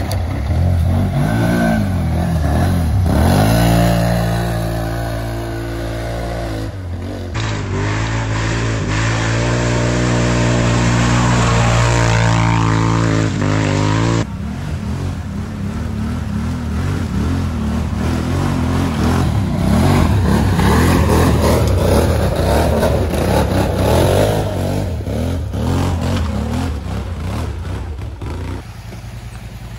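ATV engines revving hard, their pitch climbing and dropping with the throttle. The sound changes abruptly twice and turns rougher and more uneven in the second half.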